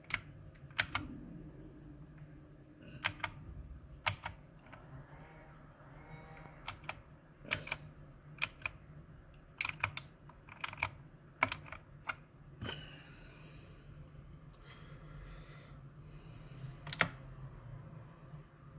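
Keys of a Mars Gaming MKmini 60% mechanical keyboard being pressed one or two at a time: sharp separate clicks at uneven intervals with pauses between them, rather than continuous typing.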